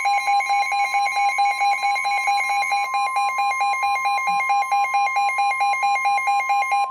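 Emergency alert attention signal: a steady high tone sounding together with a lower tone that pulses rapidly, like a ringing bell.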